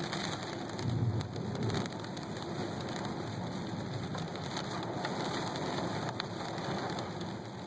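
Steady heavy rain with many sharp drop hits, and a low rumble of thunder swelling about a second in.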